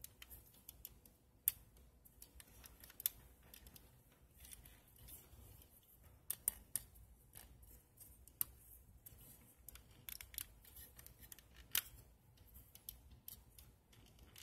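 Hard plastic parts of a MasterMind Creations Kultur transforming robot figure clicking and knocking as they are handled and moved through its stiff joints, with a soft handling rustle between. The clicks are short, sharp and come irregularly, a handful of louder ones among many faint ones.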